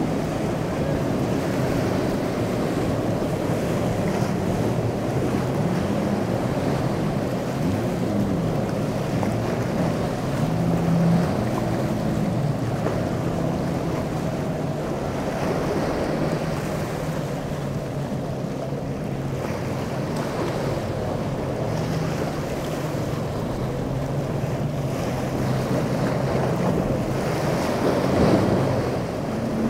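Boat engines running with their pitch wandering up and down, over the wash of breaking waves and wind buffeting the microphone.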